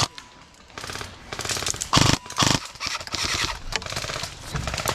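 Airsoft electric rifle firing short full-auto bursts, a fast even rattle of shots: two short loud bursts about two seconds in, with fainter rapid firing before and after.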